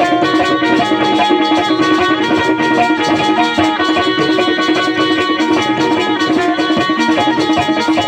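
Instrumental passage of a Bundeli Rai folk song: a plucked string melody over a steady, busy drum rhythm, playing between sung verses.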